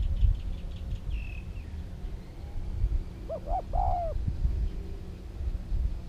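Spotted dove cooing: a short phrase of three low, arched coo notes about three seconds in, over a steady low rumble.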